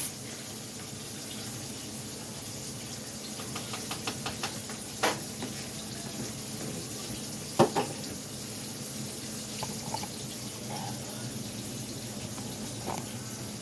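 A pot of water boiling on the stove with macaroni just put in: a steady bubbling hiss. A few light clicks come through it, then two sharper clinks of utensil or pot, the louder a little past halfway.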